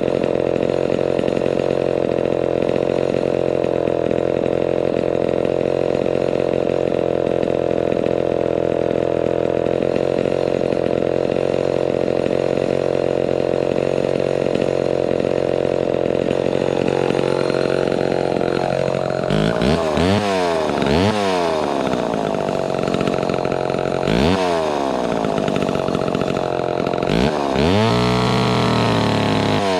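Vintage Homelite XL12 two-stroke chainsaw running at a steady speed just after a cold start, then revved up and down several times from about two thirds of the way in, with one longer rev near the end.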